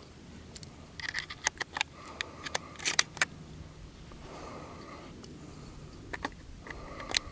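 20-gauge shells being pushed through the loading port into the magazine tube of a Remington 870 pump shotgun. A run of sharp clicks comes as the shells snap past the shell latch, with a busy cluster one to three seconds in and a few more near the end.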